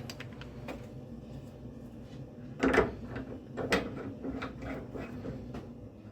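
Handling noises from work on a radiator valve: irregular metallic clicks and knocks of a spanner and fittings, with a louder clatter about two and a half seconds in.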